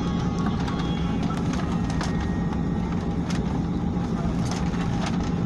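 Cabin noise of a Boeing 737-900ER taxiing: a steady engine and air-conditioning hum, joined at the very beginning by a low steady drone, with scattered light clicks and rattles.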